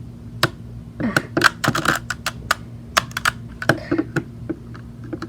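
Plastic Rubik's cube being twisted by hand: a run of quick, irregular clacks, densest about one to two seconds in.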